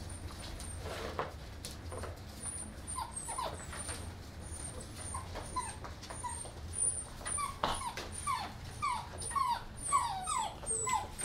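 English Mastiff puppies whimpering: short, high whines that fall in pitch. They are sparse at first, then come quickly one after another in the second half.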